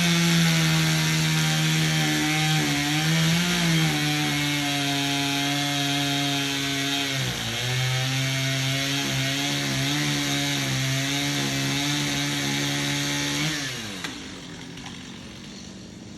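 Chainsaw at high revs cutting into wood, its pitch sagging under the load. The engine dips briefly about halfway through and picks up again, then winds down near the end as the throttle is released.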